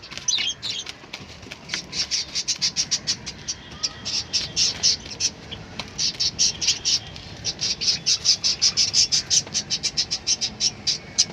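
Young native chickens (chicks) peeping: a dense run of short, high, repeated peeps from several birds at once, easing briefly about halfway through.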